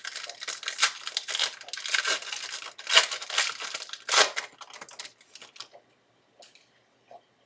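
A 2012 Panini Rookies & Stars football card pack wrapper being torn open and crinkled: dense crackling for about four seconds, thinning to a few soft rustles.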